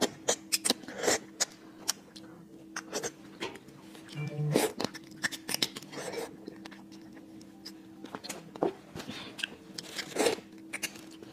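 Close-miked eating of a marinated crab: biting, crunching and sucking on the shell and legs. Many sharp clicks and smacks come at irregular intervals, with a few longer slurps, about a second in, near the middle and near the end.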